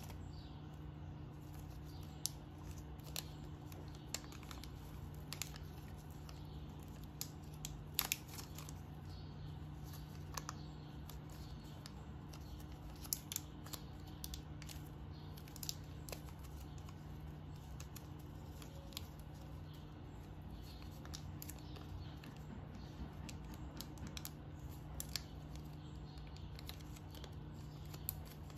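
Thin plastic wrap and a clear plastic blister tray being handled and peeled, making irregular sharp clicks, ticks and crinkles over a steady low hum.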